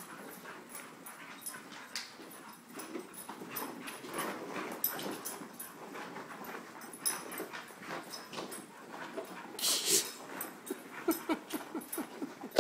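Puppies playing, whimpering and yipping amid scuffling and clicking, with a short hissing burst about ten seconds in and a run of quick short yips near the end.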